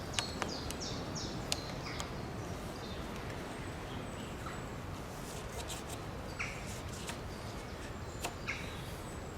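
Birds chirping over a steady outdoor background hiss, with a few small clicks and rustles from rope being handled while a knot is tied.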